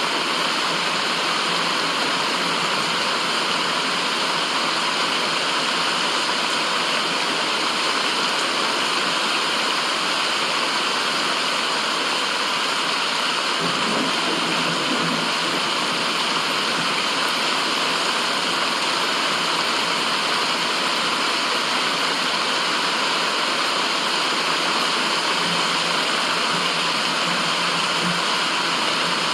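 Continuous white-noise track: a steady, even rush with no breaks, with a faint low stirring briefly about halfway through and again near the end.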